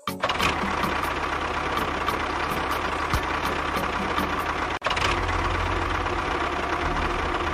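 A small motor running steadily, with a brief cut-out just under five seconds in.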